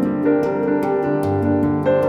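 Background music: a soft piano-led instrumental with sustained notes over a light steady beat.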